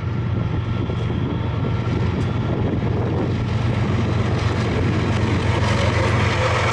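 Diesel locomotives at the head of a BNSF freight train approaching, a steady low engine drone growing gradually louder.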